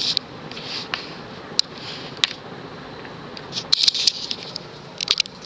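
TAT 48-inch spinner ceiling fan with a cast iron motor running steadily, a continuous hum and rush of air, with a few short sharp clicks scattered through it.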